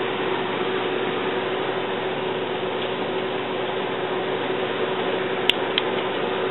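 Steady background hiss with a faint low hum, and two small clicks close together about a second before the end.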